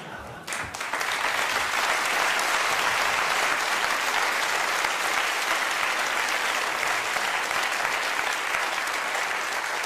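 Audience applause, building up within the first second and then holding steady.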